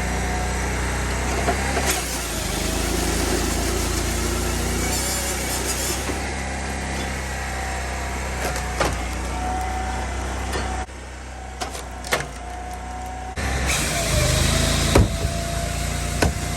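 Firewood processor running while processing ash logs: a steady engine hum with a whining tone that slides up and down in pitch, and scattered sharp knocks of wood. The sound drops abruptly about eleven seconds in and comes back louder about two seconds later.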